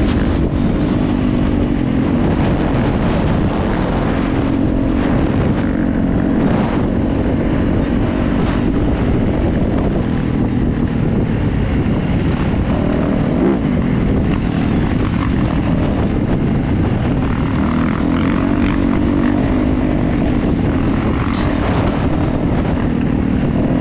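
Dirt bike engine running under load along a trail, heard from the rider's helmet camera, its note rising and falling with the throttle over a constant low rumble of wind and riding noise.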